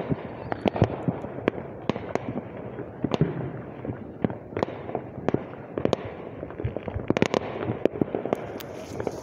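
Fireworks going off: many sharp bangs and crackling pops in irregular succession, several a second.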